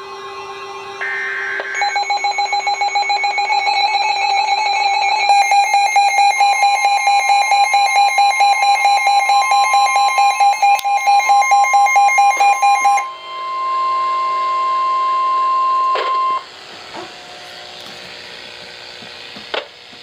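Weather alert radios sounding a tornado warning alarm: a rapid pulsing electronic beep overlapped by a steady tone near 1 kHz, the NOAA Weather Radio warning alarm tone. The pulsing beep stops about 13 seconds in, and the steady tone cuts off about three seconds later.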